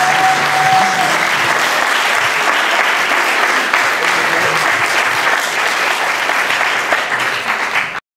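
Audience applauding: dense, steady clapping that cuts off suddenly near the end.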